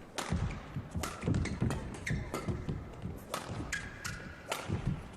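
Badminton play in a large hall: irregular sharp knocks and taps from racket strikes on the shuttlecock and players' feet on the court, with a couple of brief squeaks of shoes on the court floor, around two seconds in and near four seconds.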